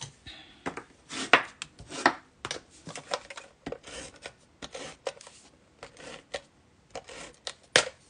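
White cardstock card base rubbing and sliding under hands on a crafting mat, with a string of short rustles and sharper paper taps, the loudest about a second in, two seconds in and near the end.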